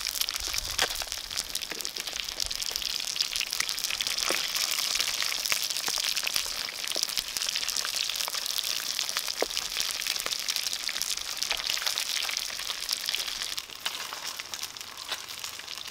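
Fish frying in hot oil: a steady sizzle with small crackles and pops, easing off near the end.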